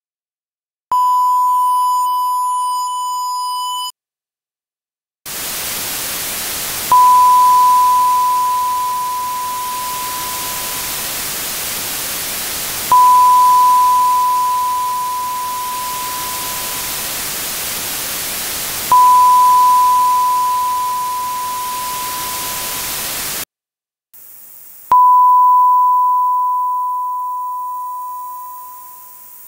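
A sine-wave ping from 16-bit dither test renders, amplified 80 dB, sounds several times, each strike fading away. The first ping has a buzzy ladder of overtones and no hiss, typical of 16-bit truncation without dither. The next three pings sound over a steady hiss of dither noise, and the last over a thin, high-pitched hiss of noise-shaped dither.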